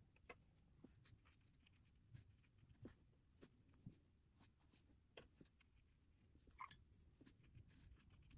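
Near silence, broken by faint scattered taps and light scratches of a watercolor brush working on paper and palette, with one slightly louder scrape late on.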